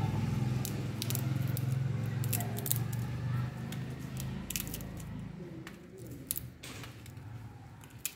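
Rose-ringed parakeet cracking and nibbling a peanut shell with its beak: a scatter of sharp, crisp clicks and crunches. A low steady hum underneath fades out about halfway through.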